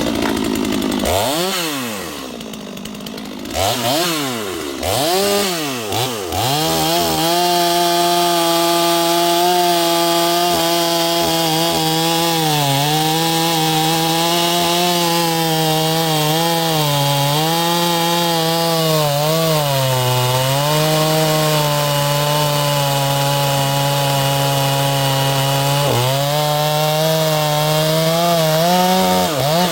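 Small 45 cc two-stroke chainsaw revving up and down a few times, then cutting into a log of twisted-grain black oak. Under load the engine holds a steady note for about twenty seconds, pulled down briefly several times, and revs higher near the end.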